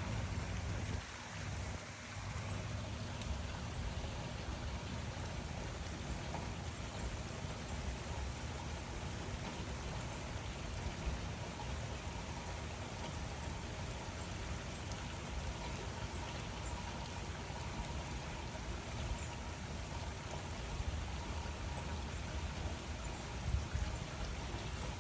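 Steady rain falling, an even hiss with a few slightly louder drops now and then.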